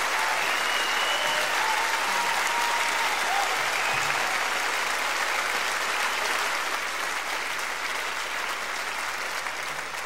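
Audience applauding, a dense steady patter of many hands clapping that slowly eases off near the end.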